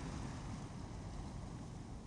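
Ocean surf washing on a beach, with wind rumbling on the microphone; the wash eases off a little between waves.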